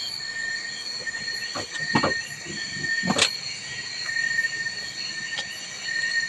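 A few sharp clicks from a Rubik's Cube being turned by hand, over a steady high-pitched whine made of several tones at once.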